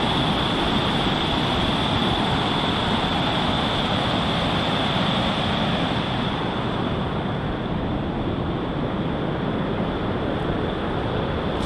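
Small creek waterfall rushing: a steady, loud wash of falling water, easing a little after about six seconds.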